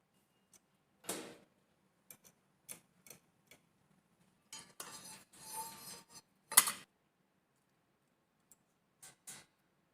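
Small hard objects being handled: scattered clicks and knocks, a stretch of rustling in the middle, and one louder knock about two-thirds of the way through.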